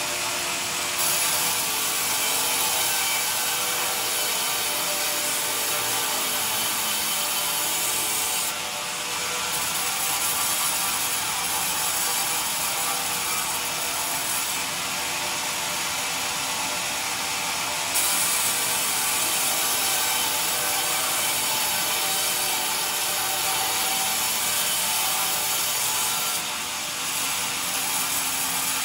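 Vertical band sawmill blade ripping lengthwise through a pine beam as the log carriage feeds it along, a steady hissing saw noise. The level dips briefly about nine seconds in and again near the end.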